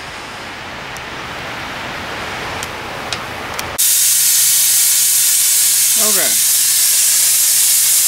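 Pop-off safety valve on a fire-tube steam boiler lifting at 100 psi. About four seconds in, a loud, steady hiss of venting steam starts suddenly and drowns out a quieter steady rush that came before it.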